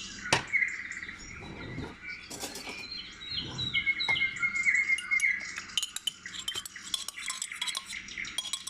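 Birds chirping and singing: repeated short falling chirps and a held whistled note, strongest in the first half. Sharp clinks of a spoon against a yogurt cup and mixing bowl, coming more often in the second half.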